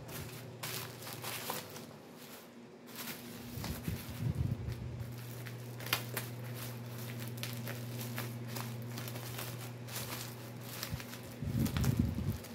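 Plastic bubble-wrap mailer crinkling and crackling as it is handled and cut open with kitchen scissors, in scattered sharp crackles. A steady low hum comes in about four seconds in and stops near the end.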